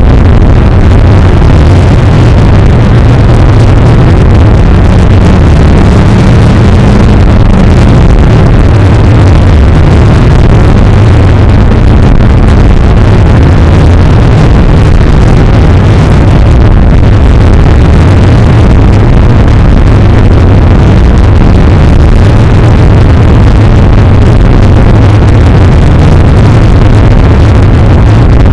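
A loud, unchanging wall of distorted noise with a heavy low rumble, running at near full level without a break.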